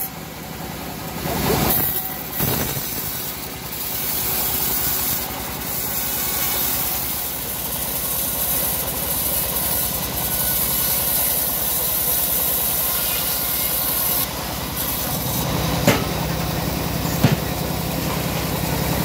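Homemade bandsaw mill ripping a slab off a teak log: the blade hisses through the wood over the machine's steady drone. The cutting noise eases about fifteen seconds in, leaving a lower hum and two short sharp knocks.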